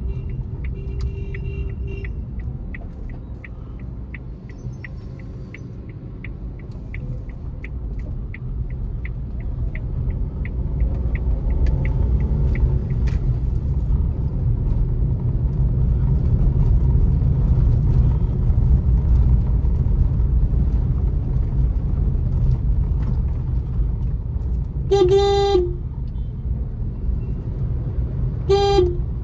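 Cabin sound of a Suzuki Alto VXL AGS being driven: a steady low engine and road rumble that grows louder about halfway through. A turn-signal relay ticks about twice a second for the first dozen seconds, then stops. Near the end a car horn honks twice, the first about half a second long and the second shorter.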